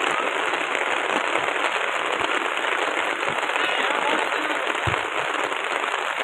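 Steady, dense patter of rain close to the microphone.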